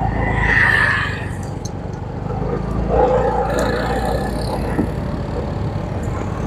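Steady low hum of a motor vehicle engine running, with some passing traffic noise over it.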